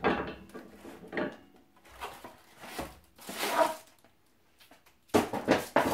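Cardboard box and wood-turning tools handled on a workbench while unpacking: scattered rustles and scrapes, a short quiet pause, then a quick run of sharp knocks and clicks near the end.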